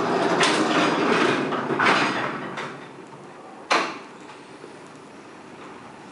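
Flohr-Otis traction elevator starting its run: about two and a half seconds of mechanical rattling and rumbling, a single sharp clunk near the middle, then a quieter steady running noise as the car travels.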